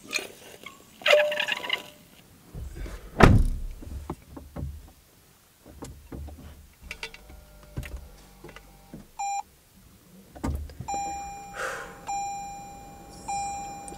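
Knocks, clicks and handling noises of a metal water bottle being drunk from and put down inside a car. In the last few seconds the car's warning chime sounds, repeating about once a second.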